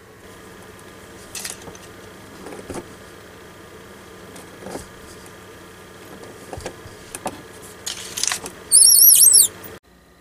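Plastic water-line fittings being hand-tightened onto a mini tank water heater: light clicks and rubbing of the fittings and hoses, then a short run of high squeaks near the end.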